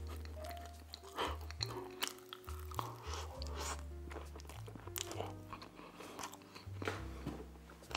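Mouth chewing and smacking on a mini Cinnabon cinnamon roll, a scatter of sharp wet clicks, over background music with a steady low bass line.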